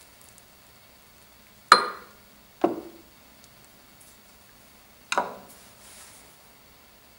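Three sharp knocks: a hard, bright knock about two seconds in, a duller thud a second later, and a double knock near the end.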